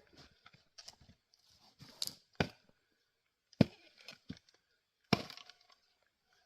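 A Gränsfors Bruk axe striking firewood: sharp woody knocks and cracks, four or five of them a second or so apart.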